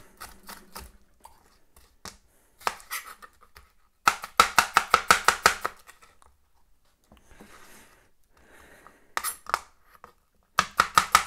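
Chef's knife chopping red bell pepper on a plastic chopping board: scattered single cuts, then a fast run of about six strokes a second about four seconds in, and another fast run near the end.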